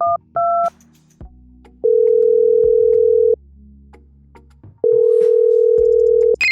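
Telephone call being placed: the last two keypad (DTMF) tones, then the line's ringback tone, two long steady beeps of about a second and a half each with a pause between, while the call waits to be answered.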